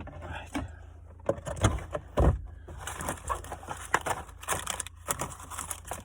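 Knocks, clicks and rattling from hands working at a car's gear stick and its plastic surround, with two louder thumps about one and a half and two seconds in.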